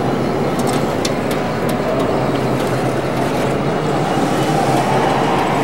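Steady din of a busy exhibition hall with a low hum under it, and a few sharp clicks in the first couple of seconds.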